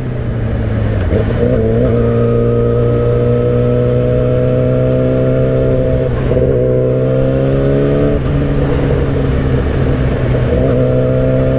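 Yamaha R6's inline-four engine running at highway speed under wind noise, its pitch climbing in the first couple of seconds, dipping briefly twice midway before recovering, and climbing again near the end.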